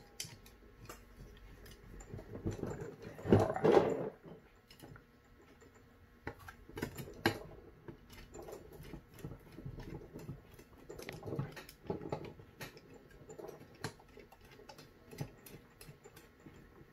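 Scattered small clicks, taps and knocks of metal hand work on a Holley 650 double pumper carburetor as its fuel bowl screws are spun in with a screwdriver, with a louder cluster of knocks about three and a half seconds in.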